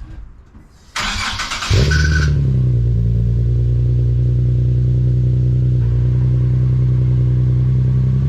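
Nissan 370Z's 3.7-litre V6 (VQ37VHR) cranked on the starter about a second in, catching with a brief flare and settling into a steady, loud idle through a new ISR Y-pipe and ISR GT single-exit exhaust.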